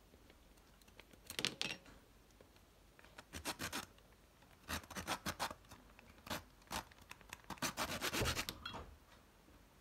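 Saw-toothed knife blade rasping back and forth through a thin twig, in several short bursts of quick sawing strokes.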